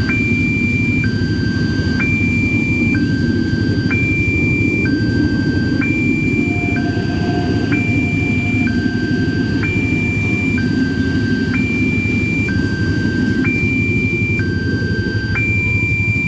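Railway level-crossing warning alarm sounding two alternating tones, high then low, about a second each, repeating about every two seconds: the signal that a train is approaching. A steady low rumble runs underneath.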